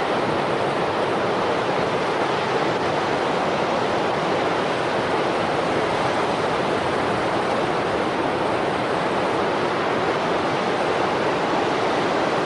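Large waves surging and breaking over rocks: a steady, heavy rush of churning water with no letup.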